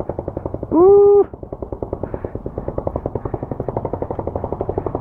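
Royal Enfield Bullet's single-cylinder exhaust thumping in a fast, even beat as the motorcycle rides at low speed.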